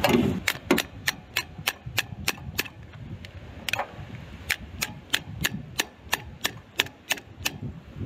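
Ratchet wrench clicking steadily, about three clicks a second, as it turns out a bolt on a generator starter motor, after a knock at the start; the clicks pause briefly near the middle.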